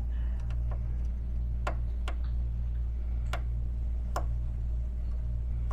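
Small Phillips screwdriver clicking against metal screws and the sensor bracket as the screws are backed out: sharp, irregular ticks about half a second to a second apart, over a steady low hum.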